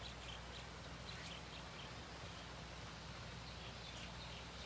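Quiet outdoor ambience: a steady low hum under a soft hiss, with a few faint, short bird chirps.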